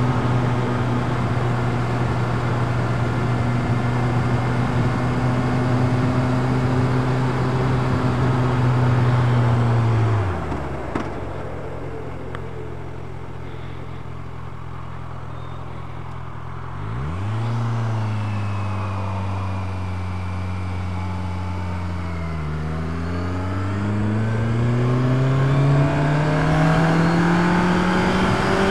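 Sport motorcycle engine heard from the rider's helmet camera, over wind noise. It holds steady revs, then the revs fall away about ten seconds in and it runs lower and quieter. A few seconds later the revs sweep back up, dip briefly, and then climb steadily as the bike accelerates.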